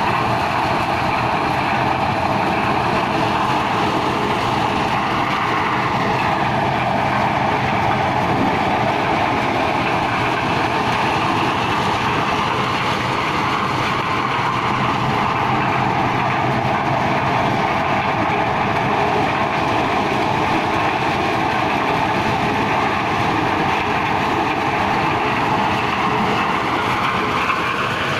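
A maize sheller belt-driven by a two-wheel power tiller's engine, running steadily while it threshes cobs: a loud, even, continuous mechanical noise with the engine's low hum underneath.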